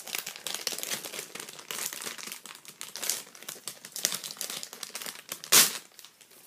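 Packaging crinkling and rustling as it is handled and opened by hand to unwrap a necklace, with many small irregular crackles and one loud burst about five and a half seconds in.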